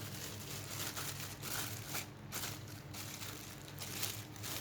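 Plastic packaging crinkling and rustling in irregular bursts as hands unwrap and handle it.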